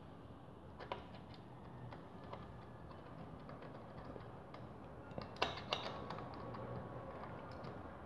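Faint, scattered clicks and light taps from hands and a tool working on a trike's disc brake caliper. A short cluster of louder clicks comes about five and a half seconds in.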